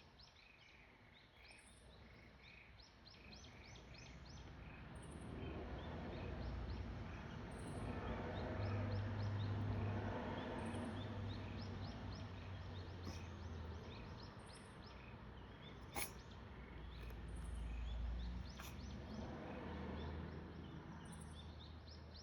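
Birds chirping again and again over a low rumble that swells and fades, with one sharp click about two-thirds of the way through.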